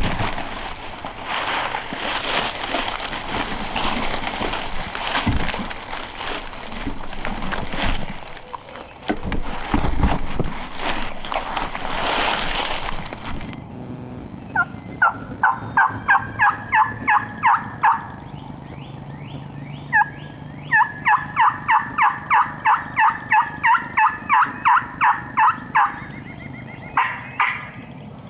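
Wild turkey calling in two long runs of short, sharp yelping notes, about four a second, with a few more notes near the end. Before the calling, a rustling hiss with scattered knocks.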